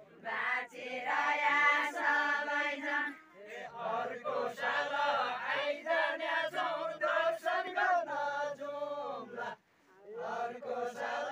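Group of voices singing a Deuda folk song in chant-like unison, phrase after phrase with short breaks between. Women's voices are heard first, then lower men's voices from about three seconds in.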